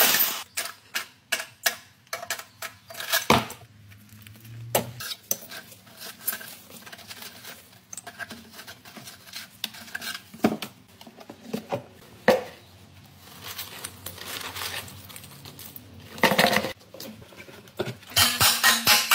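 Metal parts clinking and knocking as they are handled by hand under a car: irregular sharp clinks, knocks and scrapes.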